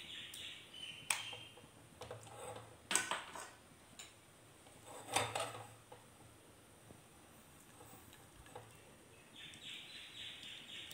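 Butter melting and sizzling faintly in a small pan over a gas flame, with a few short sharp sounds about 1, 3 and 5 seconds in. The sizzle grows a little louder near the end.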